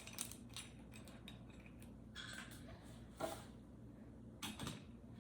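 Scattered faint clicks and knocks from a clamp-on LED desk lamp being adjusted by hand, its arm or clamp being let out, with the sharpest knocks about three seconds in and again about four and a half seconds in.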